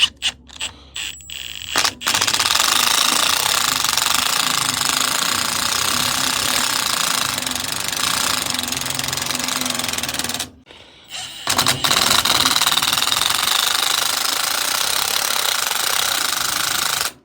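Impact wrench hammering in two long runs, the first about eight seconds and the second about five, with a short pause and a few clicks between them. The tool is working on a coilover shock's spring or nut.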